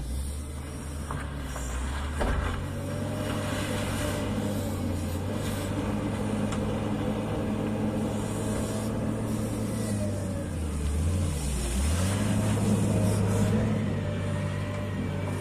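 Hyundai HL757-7A wheel loader's diesel engine running steadily under load as the machine pushes earth and gravel with its bucket. The engine note dips briefly about eleven seconds in, then comes back up, with a short clunk about two seconds in.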